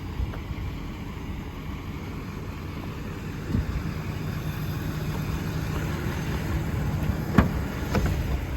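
Engine running steadily with a low rumble, and two sharp clicks near the end.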